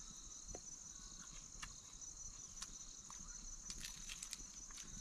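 Crickets chirring steadily in a field, with scattered faint clicks, bunched most thickly in the last second and a half.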